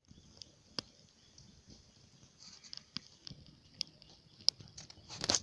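Wood campfire crackling: scattered sharp pops and snaps at irregular intervals, with a louder, denser crackle near the end.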